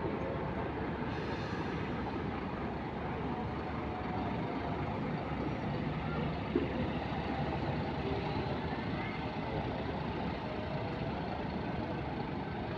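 Intercity coach's diesel engine running steadily as the bus pulls away and drives off, with a short sharp knock about six and a half seconds in.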